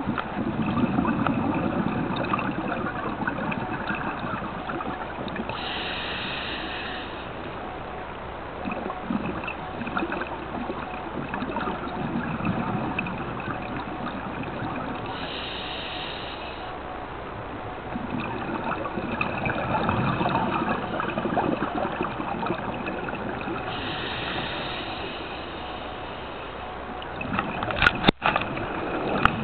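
Scuba diver breathing through a regulator underwater: a short hiss with each inhalation and a gurgling rush of exhaled bubbles, repeating about every nine seconds. A sharp knock near the end.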